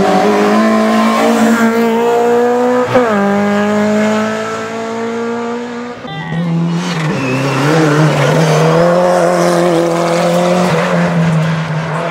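Peugeot 206 rally car's engine at full throttle, rising in pitch, with a quick upshift about three seconds in. A sudden cut about halfway through brings another rally car's engine, held at high revs and slowly climbing.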